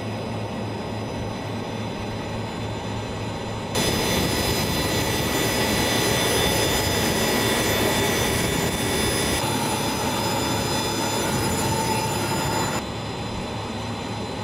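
Iskander-M launcher vehicle running with its missile raised upright for launch: a steady mechanical hum and hiss with several high whining tones. It gets louder about four seconds in and drops back near the end.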